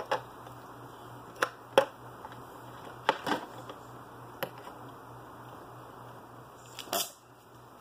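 Scattered light clicks and knocks of small items handled on a workbench, among them a spool of solder being set down, over a steady low hum.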